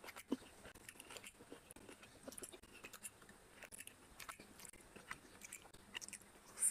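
Close-miked eating: chewing and lip smacks with many scattered small wet clicks, as fingers mix curry into rice and food is raised to the mouth. A sharper smack comes near the end.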